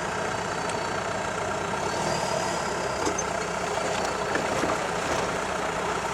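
Isuzu 4BD1T 3.9-litre four-cylinder turbo diesel idling steadily through a short header exhaust, with a faint, thin, steady high whine over the engine note.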